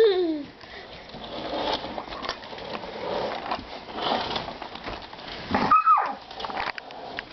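Plastic baby-wipes package crinkling in bursts of crackly rustling. A baby's voice comes in twice: a short falling squeal at the start and a high squeal just before the end.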